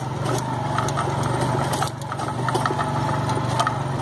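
Motorcycle engine running steadily at low speed, heard from on the bike, with scattered short clicks and knocks as it jolts along a rough dirt street.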